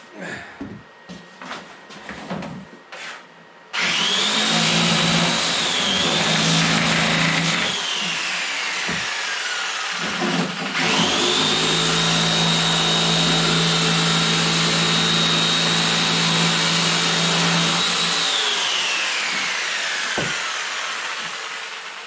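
An electric power tool's motor runs twice with a high whine. It starts sharply about four seconds in, runs a few seconds and winds down. It starts again around eleven seconds, runs steadily for about seven seconds, then coasts down with a falling whine.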